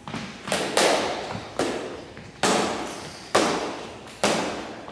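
Practice swords clashing in a choreographed stage-combat fight: a string of sharp clacks about once a second, some in quick pairs, each echoing in a large gym hall.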